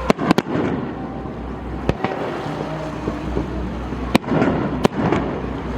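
Aerial fireworks bursting in a series of sharp bangs, three in quick succession at the start, one about two seconds in and two more near the end, each trailing off in a rumbling echo over a steady low background rumble.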